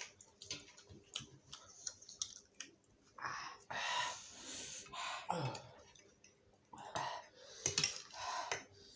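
A person eating spicy instant fire noodles close to the microphone: wet chewing with many small clicks, and several longer noisy slurps.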